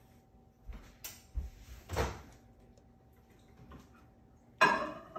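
Light knocks of a bowl being handled, then near the end two sharp loud clunks as the over-the-range microwave's door is shut.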